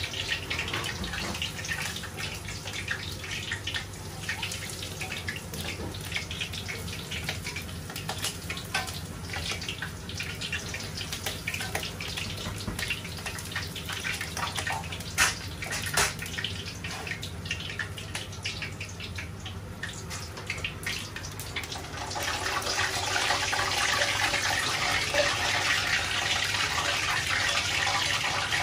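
Skewered pork belly deep-frying in a wok of hot oil, sizzling steadily with fine crackles and a few sharper pops. The sizzle grows louder about two-thirds of the way through.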